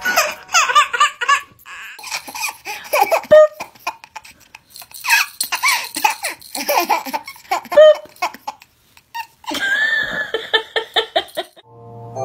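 A baby laughing in repeated fits of belly laughs, with short pauses between them.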